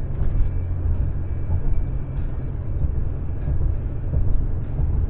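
Steady low rumble of tyre and engine noise heard from inside a car's cabin while driving.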